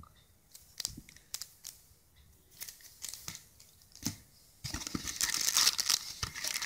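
Clear plastic packaging bags being handled while items are taken out of a phone box: a few light taps and rustles, then, about two-thirds of the way through, steady loud crinkling of plastic.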